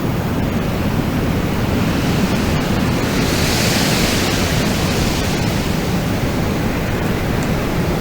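Wind blowing steadily, with a gust swelling into a higher hiss about halfway through and then dying back.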